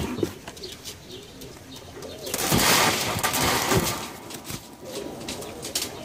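Vieshiana high-flyer pigeons cooing over and over. About two and a half seconds in comes a loud rush of wing flapping close by, lasting a little over a second.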